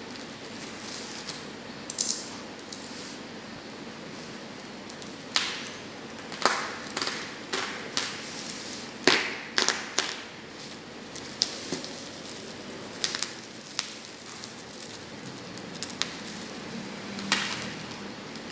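Hands handling a mini PC's retail box and packaging: scattered short rustles, clicks and light knocks, thickest in the middle, over a steady background hiss.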